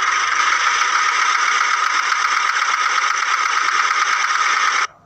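Steady engine running sound for the toy tractor, most likely a tractor engine sound effect laid over the picture. It cuts off abruptly just before the end.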